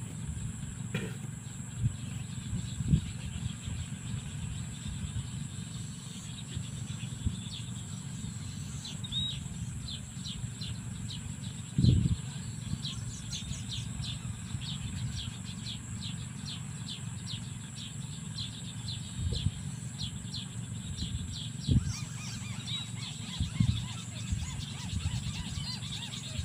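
Rural outdoor ambience: a bird chirping in a long run of quick, high, repeated chirps through the middle of the stretch. Under it runs a steady low rumble, with a few short dull thumps; the loudest thump comes about twelve seconds in.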